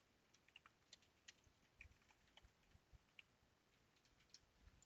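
Faint, irregular clicks of computer keyboard keys being typed on, a dozen or so scattered keystrokes with short gaps between them.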